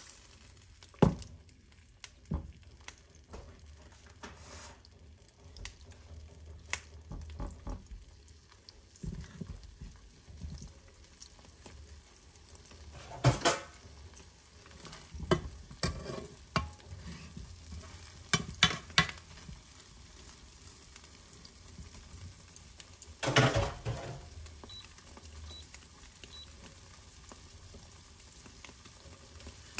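Cooking sounds: utensils clicking and scraping against cookware over a faint sizzle, with a few louder clatters along the way.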